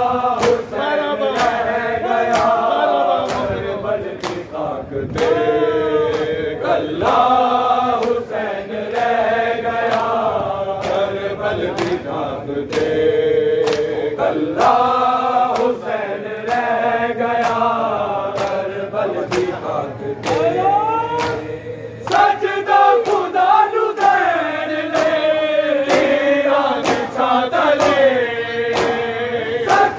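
A group of men chanting a Shia nauha (mourning lament) in unison, with a steady beat of sharp hand slaps on bare chests (matam) keeping time.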